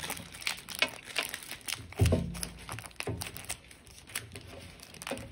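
Plastic foil wrapper of a Panini Contenders baseball card pack crinkling in the hands as it is opened, in irregular crackly rustles. There is a louder bump about two seconds in.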